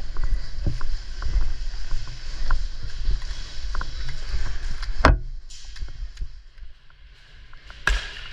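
Rustling and handling noise from a player moving with his gear, dotted with small clicks. Two sharp clacks stand out, about five seconds in and near the end.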